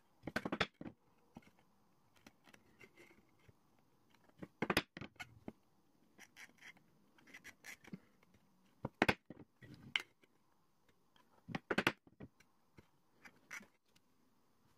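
Hand-work noise: small sharp clicks and taps in short clusters every few seconds, with soft scraping between, as small metal sheath fittings and a steel pin tool are handled against the leather sheath on a bench.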